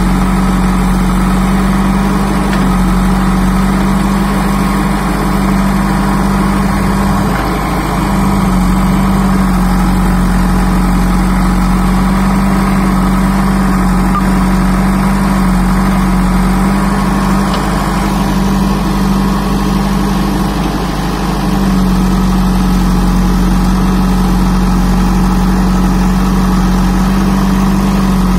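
JCB backhoe loader's diesel engine running steadily while the backhoe digs soil. It gives a constant hum whose note wavers briefly twice.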